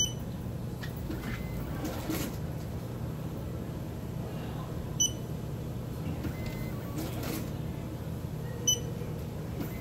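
Lottery ticket checker beeping as winning Pick 3 tickets are scanned: three short high beeps, at the start, about five seconds in and near the end, over a steady low hum.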